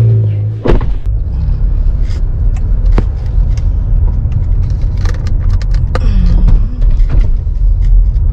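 Car cabin rumble from the engine and road while driving, a steady low drone with scattered light clicks and knocks. A louder low hum at the very start stops with a sharp knock.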